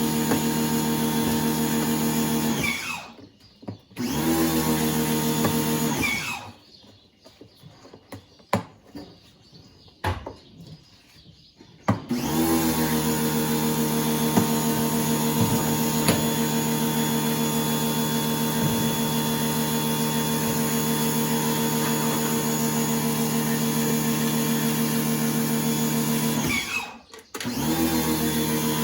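A handheld power tool's electric motor running at a steady pitch in long runs. It winds down and stops about three seconds in, again around six seconds in for a longer pause with a few clicks and knocks, and briefly near the end, starting up again each time.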